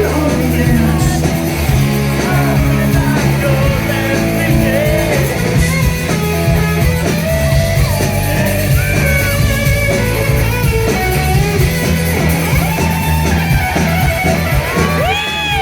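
Live rock band playing a song at full volume: electric guitars, bass and drums, with a gliding melody line on top.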